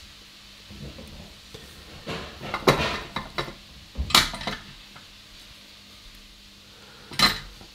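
Small metal tools and parts being picked up and put down on a workbench, clinking and clattering in a few short bursts, with one sharp clack near the end.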